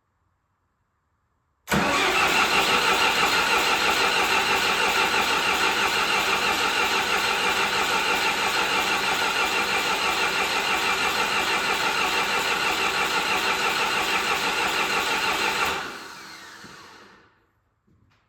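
John Deere 450C bulldozer's diesel engine being cranked by its starter, an evenly pulsing churn that starts suddenly about two seconds in, runs for about fourteen seconds, then stops and winds down without the engine catching. It fails to fire, which the owner puts down to air in the fuel lines and the machine sitting unused.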